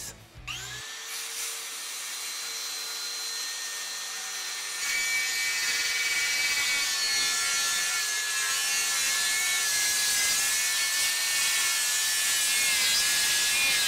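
DeWalt 60V MAX FlexVolt 7-1/4" brushless cordless circular saw (DCS578) spinning up with a rising whine, then cutting through a pressure-treated 6x6 post. The cut gets louder about five seconds in as the blade goes deeper into the wood, and the motor holds a steady pitch under the load.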